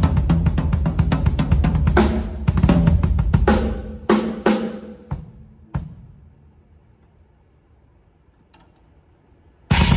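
TAMA Starclassic Bubinga drum kit with MEINL cymbals played as a full groove of bass drum, snare and hi-hat with several cymbal crashes. It stops on two last hits about five and six seconds in, rings out into a few seconds of near quiet, and comes back in with the whole kit just before the end.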